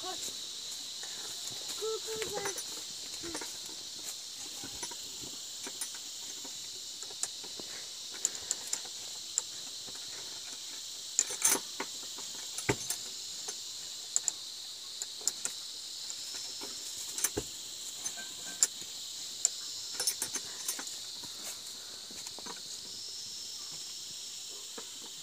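Steady high-pitched insect chorus, with scattered sharp clicks and knocks throughout.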